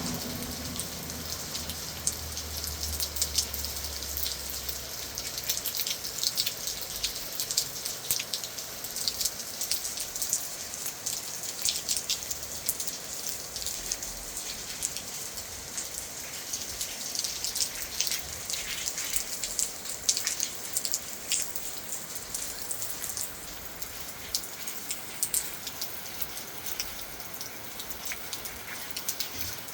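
Steady rain falling, with many individual drops ticking sharply on a hard surface. A low rumble sits under it for the first few seconds, then fades.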